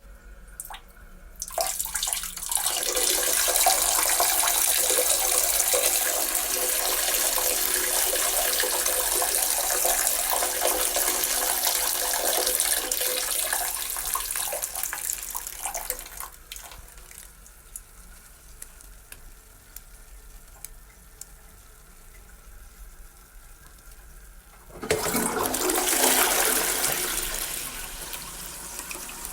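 A man urinating into a toilet bowl: a steady splashing stream starts about two seconds in, weakens and tapers off into dribbles past the middle. Near the end comes a sudden, louder rush of water that fades away.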